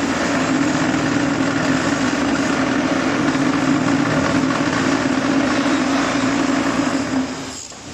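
Concrete block-making machine running its vibration, a loud steady mechanical drone that cuts off about seven seconds in, as at the end of a compaction cycle.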